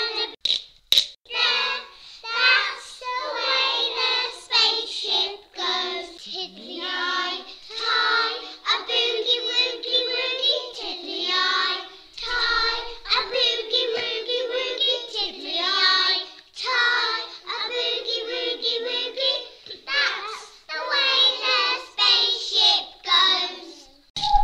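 Young children singing a song together, with a couple of sharp clicks about a second in.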